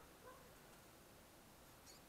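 Near silence, with a faint brief sound about a quarter second in and a faint high tick near the end.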